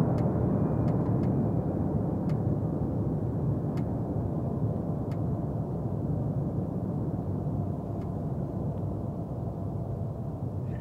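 Jet noise of a Bombardier CRJ-200 regional jet climbing out after takeoff: the steady rumble of its two rear-mounted GE CF34 turbofans, fading slowly as the aircraft recedes.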